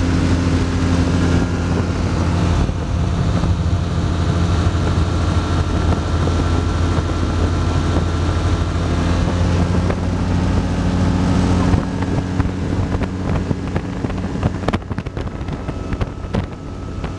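Microlight aircraft engine droning steadily in flight, heard from inside the cockpit with wind rushing past the microphone. The engine note eases back about twelve seconds in and drops again near the end, with a few knocks of wind buffeting or handling.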